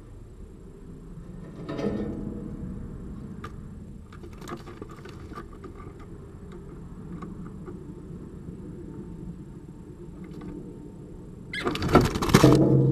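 A steady low rumble with a few faint clicks, then, about a second before the end, a short loud burst of scuffling and knocking as two squirrels tumble against the feeder right by the camera.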